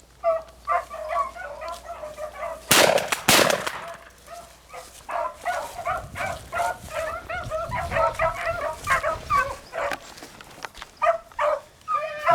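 A pack of beagles baying in quick, repeated cries while running a rabbit's track. About three seconds in there are two loud bangs in quick succession.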